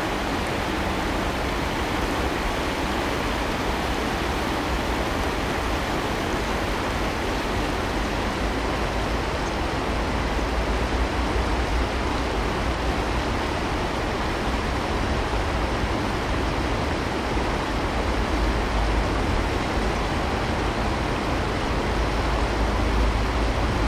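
Steady rushing of flowing stream water, with a low rumble that swells at times.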